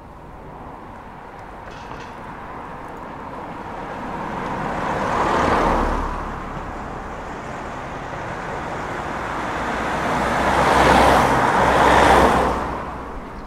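Road vehicles driving past: one swells up and passes about five seconds in, then a louder pass with a double peak around eleven to twelve seconds, over a low engine hum.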